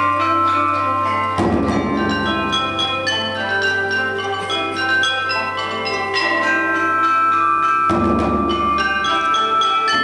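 Traditional Chinese ensemble music led by a set of bronze chime bells (bianzhong) ringing out a melody, with zither and percussion accompaniment. The accompaniment thickens about a second and a half in.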